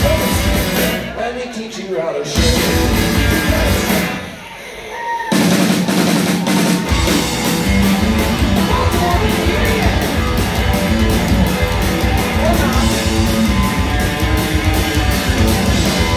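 A rockabilly trio playing loud live: hollow-body electric guitar, upright bass and drum kit. A few seconds in, the band thins out briefly and the low end drops away, then it comes back in at full drive.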